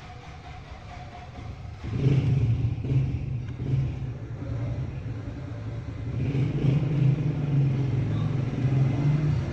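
An electric motor starts about two seconds in and runs with a steady low hum.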